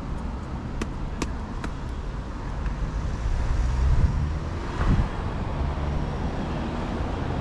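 Road traffic running past, a steady low rumble of engines and tyres, with a few light clicks in the first two seconds and a single knock about five seconds in.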